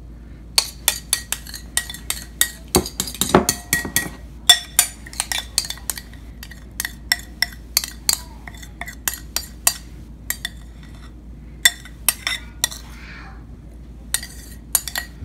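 A spoon clinking and scraping against a bowl as thick cocktail sauce is spooned out into a glass cup: quick irregular taps, a few a second, with a few short pauses.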